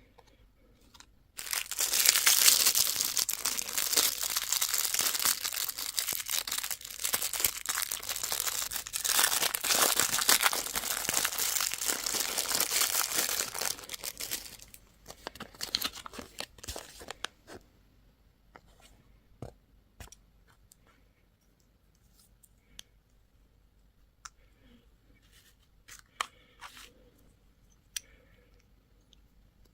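Candy packaging being torn and crinkled open, a loud continuous rustle for about thirteen seconds, followed by scattered light rustles and taps.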